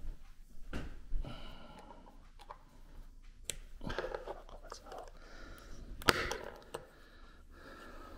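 Sharp clicks and knocks from small parts of a salvaged DVD-drive brushless motor being handled and prised at, the loudest about six seconds in, with low muttering between them.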